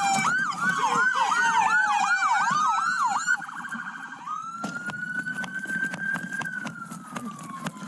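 Police car sirens in a pursuit: a fast yelp sweeping over a slower wail, the yelp stopping about three seconds in, then one slow wail rising and falling. Vehicle rumble and frequent short clicks run beneath.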